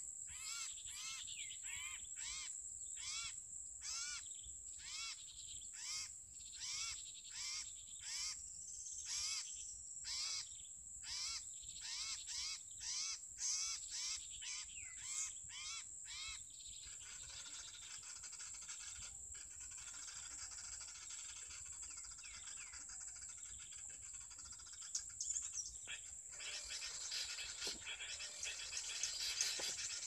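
Common iora (cipoh) call played as a trapping lure from an MP3 recording: short rising-and-falling notes repeated about twice a second, stopping about halfway through, after which only faint scattered chirps remain. A steady high-pitched insect buzz runs underneath throughout.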